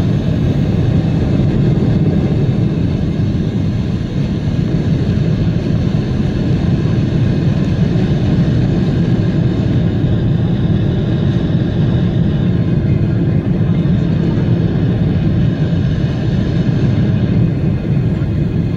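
Boeing 777 cabin noise during the climb after takeoff: the jet engines and rushing air make a loud, steady low rumble, with a faint steady whine above it.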